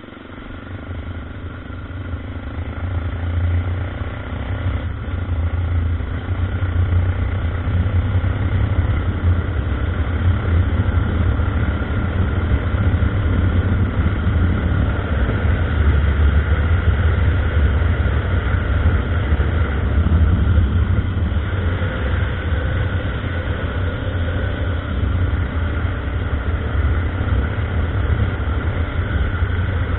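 Honda NX 350 Sahara's single-cylinder four-stroke engine running as the motorcycle accelerates. It grows louder over the first few seconds, then holds steady at speed.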